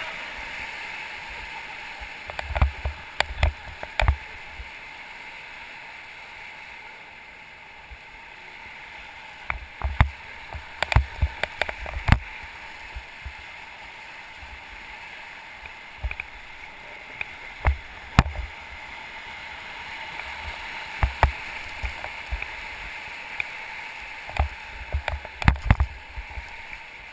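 Steady rush of river water flowing around an inflatable raft, with scattered sharp knocks and taps at irregular intervals.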